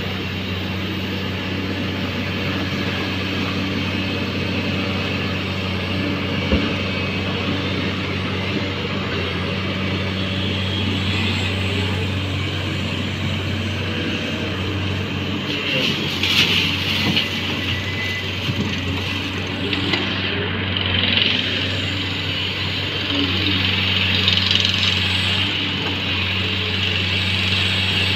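Diesel engines of a JCB tracked excavator and the tipper truck it is loading, running with a steady low hum while the excavator works its hydraulics. Partway through, a louder rush of noise rises as a bucketload of soil drops into the tipper's steel body.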